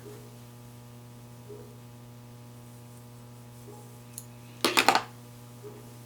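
Steady low electrical hum, with a quick cluster of sharp metallic clinks about two-thirds of the way through as metal hair pins are pulled from the set curls and dropped.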